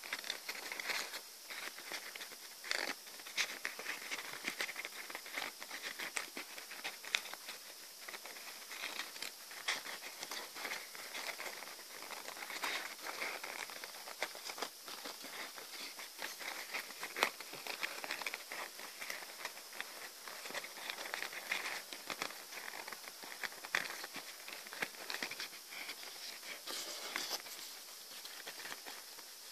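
Folded paper rustling and crinkling as origami units are handled and slotted together into a modular paper ball, with many small irregular clicks and scratches.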